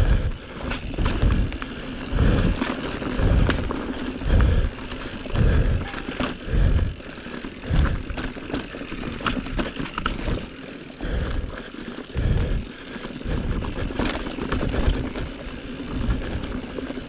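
Mountain bike being ridden on a dirt woodland trail, heard from a rider-mounted action camera: tyre and trail noise with scattered clicks and rattles from the bike, and low puffs or thuds about once a second.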